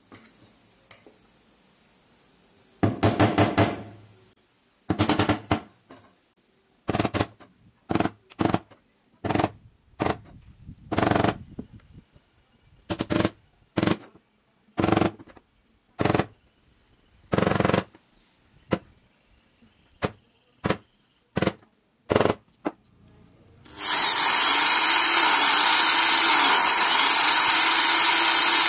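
A hammer striking a punch or nail on an aluminium square bar again and again, about twenty sharp ringing taps at uneven spacing, marking where the holes go. About 24 seconds in, an electric drill starts up and runs steadily as the bit bores into the aluminium bar.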